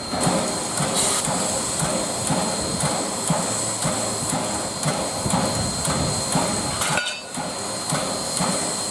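Valley Railroad 2-8-2 steam locomotive No. 40 standing with steam up, hissing steadily, with a slow, uneven thumping about once a second from its air pump.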